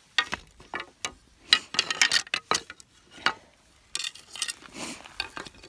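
Dry shed deer antlers clacking and knocking against each other and the rocky ground as they are handled and set down: a quick run of sharp clicks and clatters, with a second flurry near the end.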